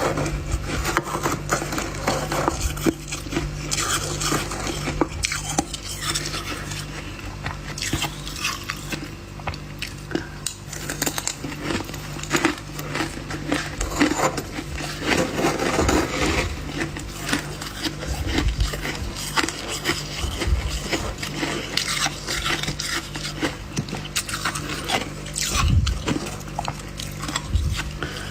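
Freezer frost ice being scraped and crunched while eaten: a dense run of small clicks, scrapes and crunches, with a utensil clinking, over a steady low hum.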